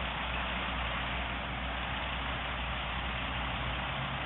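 Heavy construction equipment's diesel engine running steadily: a low, even hum under a constant hiss.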